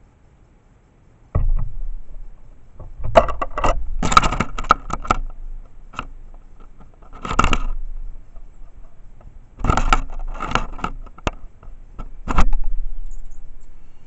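A series of loud knocks, scrapes and rattling clatters coming in bursts, several with a dull thud, the last one fading over about a second.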